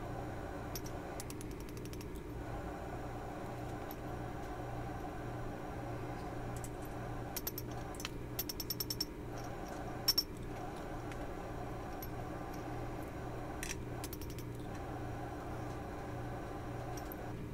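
Light metallic clinks and taps as small tools and wrought-iron pieces are handled on a steel anvil, in a few short clusters of quick ticks with a sharper pair of clicks near the middle. A steady mechanical hum runs underneath.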